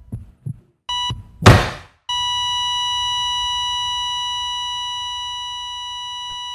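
Heart monitor beeping once, with a few soft low thumps, then a loud thud about one and a half seconds in. About two seconds in, a long, steady, high flatline tone begins and fades slightly, the monitor's sign that the patient's heart has stopped.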